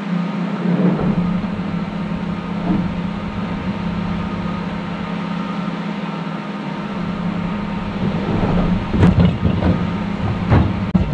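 Vehicle running with a steady low engine hum and road rumble, with a few sharp thumps near the end.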